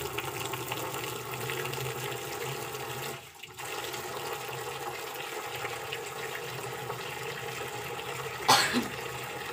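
Tap water pouring in a steady stream into a blue plastic drum, a continuous splashing rush that briefly dips about three seconds in. A short, loud burst sounds near the end.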